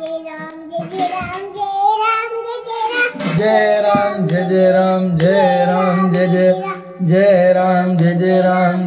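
Hindu devotional bhajan: voices singing a melody over a steady drone.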